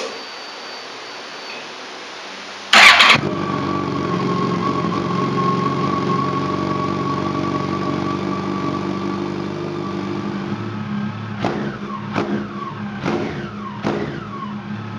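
2015 Yamaha FJR1300's inline-four with a Delkevic DL10 carbon-fibre slip-on muffler, cold-started: the starter turns it over briefly about three seconds in, it catches and settles into a steady fast idle. Near the end the throttle is blipped four times, each rev rising and falling quickly.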